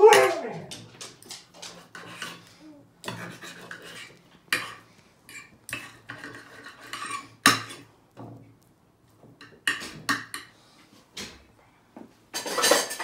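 Knife and fork clicking and scraping on a plate as raw steak is cut into pieces. A Siberian husky gives a loud call that falls in pitch right at the start and calls again near the end.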